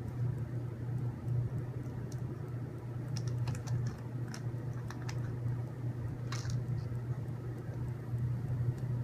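Small screws and plastic kit parts clicking and rattling as they are picked through by hand, in a loose cluster of light clicks a few seconds in and another near the end, over a steady low hum.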